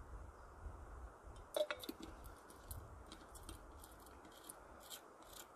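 Someone drinking from a stainless steel flask: a gulp about one and a half seconds in, then a run of faint small clicks as the flask is lowered and handled.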